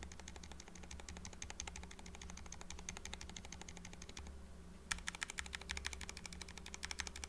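Fast typing on mechanical keyboards fitted with silent linear Roselio switches with modified 40 g springs, a dense run of soft key presses. It stops about four seconds in and resumes a moment later with sharper, brighter clacks: the same switches heard in a different case, low-profile against high-profile.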